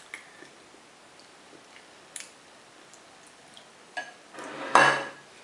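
A wooden spoon lightly tapping and clinking against a glass bowl of sauce, a few scattered clicks with a brief ring, then a louder clatter and scrape lasting about half a second near the end.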